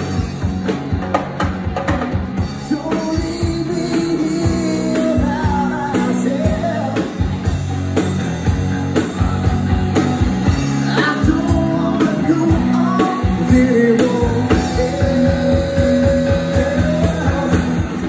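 Live rock band playing: drum kit and electric guitar with a singer.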